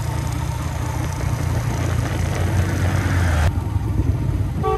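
Motorcycle engine running steadily while riding, with wind and road noise, heard from the rider's seat. The wind hiss cuts out abruptly a little after three seconds in.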